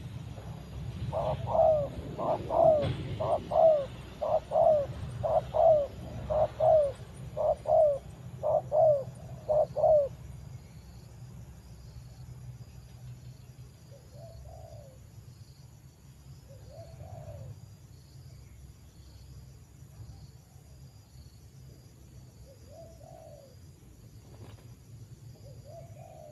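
Spotted dove cooing: a loud, quick run of about a dozen short coos in the first ten seconds, then a few fainter single coos several seconds apart.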